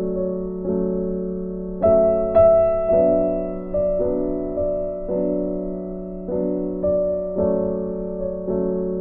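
Background music: a soft electric piano playing slow, sustained chords, a new chord struck about once a second and left to fade.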